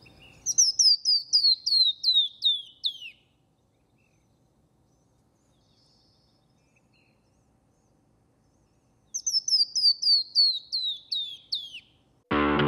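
Canyon wren singing its cascading song twice, several seconds apart. Each song is a run of about a dozen clear whistled notes, each slurring down, the series falling in pitch as it goes. Just before the end, loud distorted electric guitar music starts.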